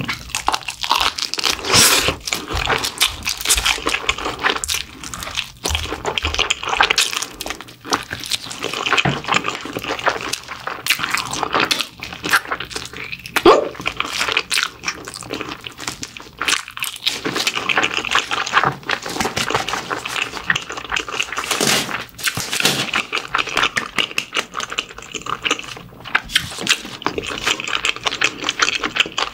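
Close-miked eating sounds: a person chewing and gnawing mala-stir-fried pig's trotters around their many small bones, heard as a steady stream of irregular short wet clicks and crunches.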